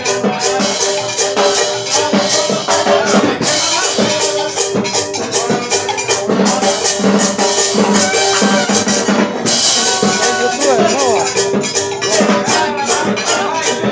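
A band playing dance music with a fast, even beat driven by shaken percussion and drums under sustained melody notes.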